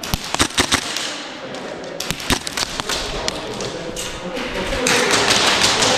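A quick run of sharp knocks and thuds, a few more about two seconds in, then a louder rustling noise that builds toward the end.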